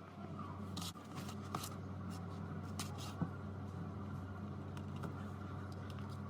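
A steady low electrical hum with scattered small clicks and taps.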